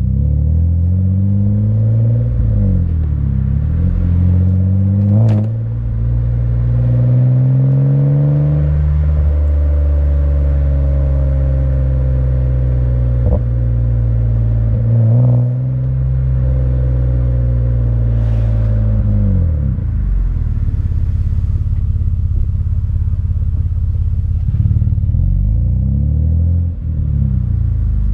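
Exhaust of a 2009 Mitsubishi Eclipse GT's 3.8-litre V6 while driving. The pitch climbs, drops and glides down again several times as the car accelerates, shifts and eases off, with short dips in loudness at the shifts.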